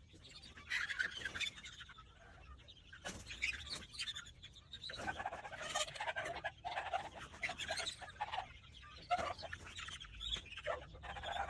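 Many young chickens cheeping and chirping at once, with dense overlapping calls that come and go in irregular waves.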